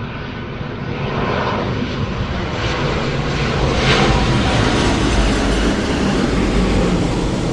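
Large airplane's engine noise building to a peak about four seconds in, with a deep rumble underneath that stays strong afterwards.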